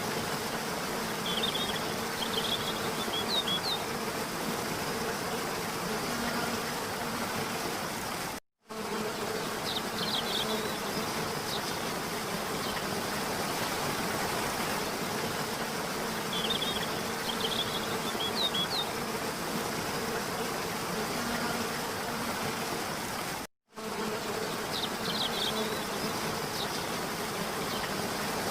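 Waterfall: a steady rush of falling water, with a few short clusters of high chirps over it. The sound cuts out completely for a split second twice, about 8.5 and 23.5 seconds in, where the recording loops.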